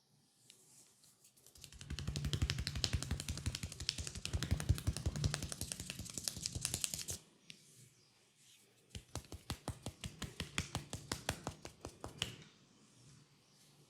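Fast rhythmic clicking and tapping of hands working on a head during a head massage. It comes in two bouts: a dense run lasting several seconds with a soft thud under the clicks, then after a short pause a slower, evenly spaced run of sharp clicks.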